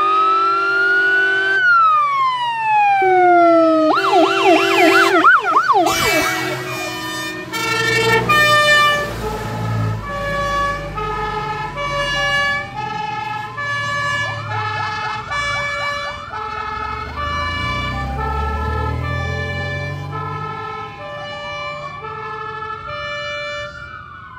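Fire engines' sirens passing close by: a rising wail, a burst of fast yelp, then a steady two-tone hi-lo pattern with a second yelp in the middle and a rising wail near the end. The trucks' engines are heard underneath as they drive past.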